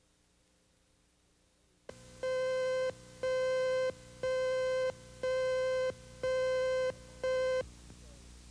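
Videotape slate cue tone: six beeps of one steady pitch, about one a second, each lasting most of a second and the last one shorter, over a faint tape hum. It starts about two seconds in, after dead silence.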